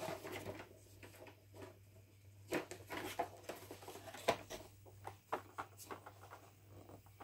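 Plastic and cardboard toy-car packaging being handled: rustling, with a string of small clicks and taps, the sharpest about four seconds in.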